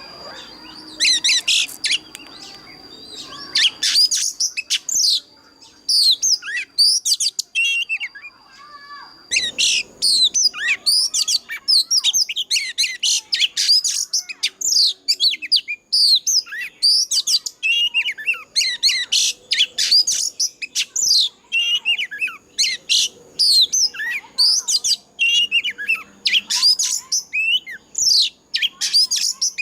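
Oriental magpie-robin singing a loud, fast, varied song of sweet whistles, slurs and chirps. The phrases come in spaced bursts at first, pause briefly about a third of the way in, then run on without a break. A thin steady high tone sits beneath the song.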